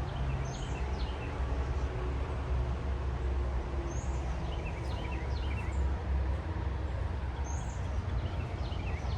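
A bird singing a short phrase of falling high notes, repeated about every three to four seconds, over a steady low rumble.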